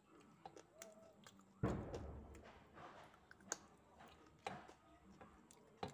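Chewing and biting on chicken on the bone, eaten by hand. A sharp thump comes about a second and a half in, followed by a few short clicks.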